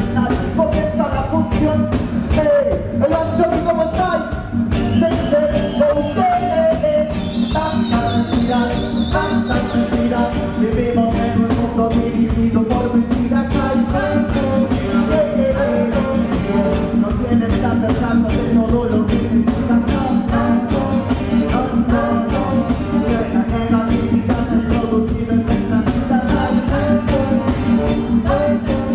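Live reggae band playing, with a male vocalist singing in Spanish over keyboard, guitar and a steady beat.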